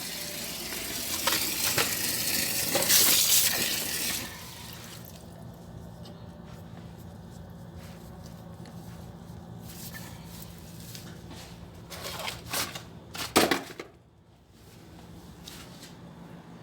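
Water gushing from a garden hose that has slipped off the tap, for about four seconds, then cutting off abruptly. Later come a few metallic clinks and a sharp knock as the hose fitting is handled.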